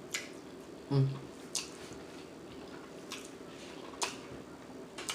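Wet mouth smacking while chewing creamy Alfredo pasta with shrimp and chicken: a few sharp, separate smacks, with a brief low vocal sound about a second in.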